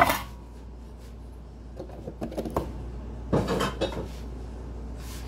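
Metal cake pan set down on the counter with a sharp, ringing clank at the start, followed by lighter metallic rattles and a louder clatter about three and a half seconds in as the pan is handled.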